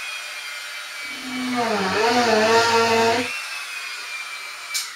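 Small corded electric drill running with a steady high whine; from about one to three seconds the bit bites into the wooden baseboard, adding a deeper, wavering groan under load, then the drill runs free again. A click near the end.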